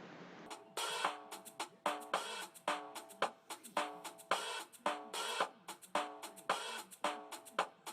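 Background music with a drum kit beat (hi-hat, snare and bass drum) under pitched instrumental notes, starting about half a second in.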